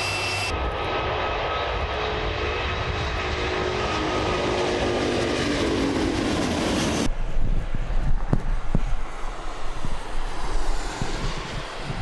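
Airbus A380 jet engines passing low overhead on climb-out: a roar with several whining tones that slide steadily down in pitch as the aircraft goes by. About seven seconds in, this gives way abruptly to a deeper, rumbling A380 take-off roar, with gusts of wind buffeting the microphone.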